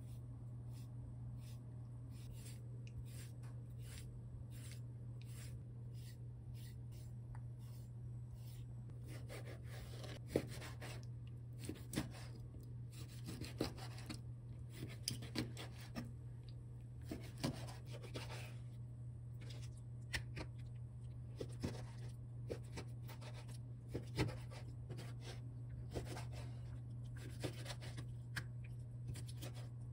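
Kitchen knife cutting raw squid on a plastic cutting board: light scraping strokes, then a run of short taps as the blade meets the board, more frequent from about ten seconds in. A steady low hum runs underneath.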